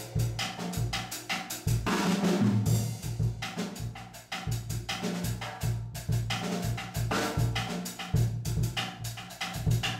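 Ludwig drum kit played in a solo: a quick, continuous run of hits on snare, toms and cymbals over the bass drum, with a longer ringing wash about two seconds in.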